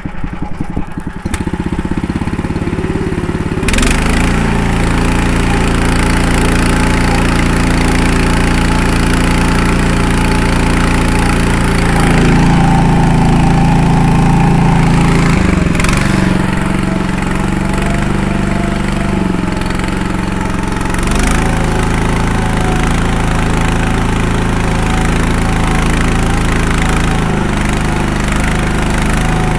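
AMZhK-8 mini tractor's engine running under load as it pulls a single-bottom plough up a steep slope in high gear. It picks up and gets louder a few seconds in, and its note shifts twice later on.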